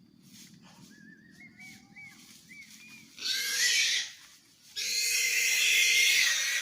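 Short, high, rising-and-falling yelping calls, then two loud, harsh squeals from a wild pig caught in a hunting net, the second one held for nearly two seconds.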